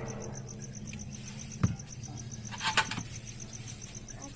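A cricket chirping in a fast, even pulse, about eight chirps a second, over a low steady hum. A single thump comes about one and a half seconds in, and a short clattering knock with a ring comes near three seconds.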